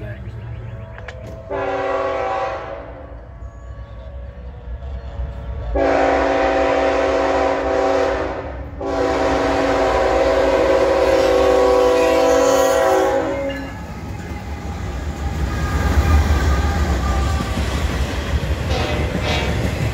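Lead Norfolk Southern GE ET44AC locomotive sounding its multi-chime air horn in three blasts: a short one, then two long ones with a brief gap between. The diesel locomotives then rumble past as the intermodal train goes by, growing louder about three seconds after the horn stops.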